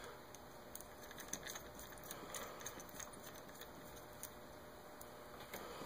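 Faint, scattered small clicks and ticks of a precision hex driver turning tiny grub screws out of a metal landing-gear retract strut.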